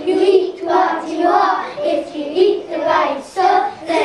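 A group of children chanting a rap together, in rhythmic phrases.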